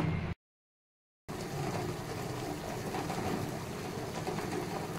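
Water with eggs in it boiling hard in a steel pot: a steady bubbling noise, after a brief dead gap near the start.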